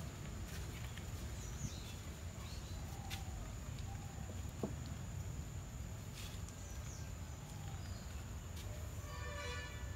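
Garden ambience: a steady low wind rumble and a thin high whine, with a few short bird chirps, a small click just before the middle and a brief pitched call near the end.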